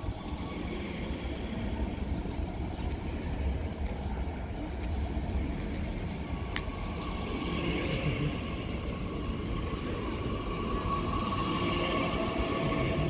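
Rumble of a train running on rails, steady and low, with a faint higher squeal that grows stronger in the second half.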